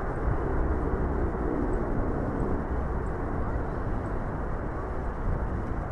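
Distant Bombardier Q400's Pratt & Whitney PW150A turboprop engines running as the aircraft taxis on the runway: a steady, even rumble with no change in power.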